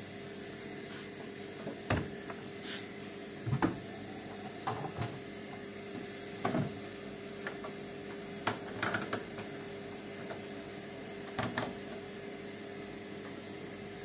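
Scattered clicks and knocks from handling an Indesit front-loading washing machine after its cycle has finished: the door being opened and the program dial being turned by hand, with a quick run of dial clicks about nine seconds in. A steady hum runs underneath.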